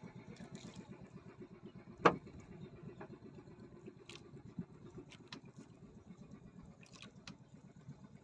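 Boat engine running steadily with a fast, even beat. A single sharp knock comes about two seconds in, and a few lighter clicks follow.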